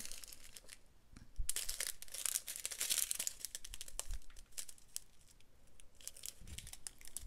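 Small plastic bags of diamond painting drills crinkling as they are handled. The rustling is loudest for about two seconds starting a second and a half in, then goes on as lighter crinkles and clicks.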